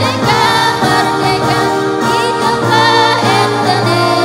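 Women's choir singing a sholawat (Islamic devotional song) together into microphones, amplified through loudspeakers, in long held notes.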